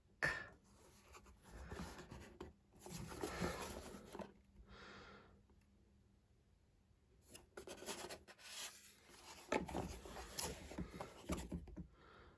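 Cardboard toy packaging being handled, with several spells of rubbing and scraping.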